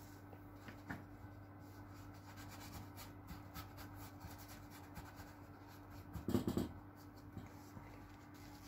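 Flat bristle brush scratching and dabbing oil paint onto canvas in quick, faint strokes. A brief voice sound comes about two-thirds of the way through.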